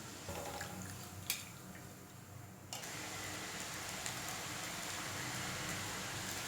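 Hot oil sizzling as besan sev fries in a kadai, with a single light click about a second in; just before three seconds the sizzling suddenly gets louder and then holds steady.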